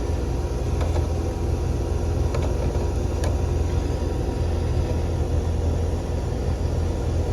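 Carrier heat pump outdoor unit running: a steady low hum and rumble, with a few faint ticks.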